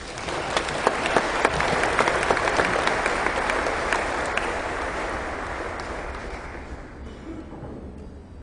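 Audience applauding, a dense patter of many hand claps. It starts abruptly, is loudest in the first few seconds, then dies away over several seconds.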